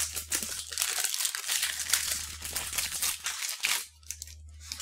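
Clear plastic wrapper of a mung bean moon cake crinkling and tearing as it is opened by hand, in quick dense crackles that stop about four seconds in, with one short crackle near the end.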